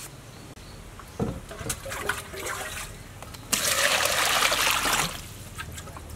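Water gushing into a stainless steel bowl to rinse a peeled eggplant, starting suddenly a little past the middle and stopping about a second and a half later. Before it, a knock and some small handling sounds.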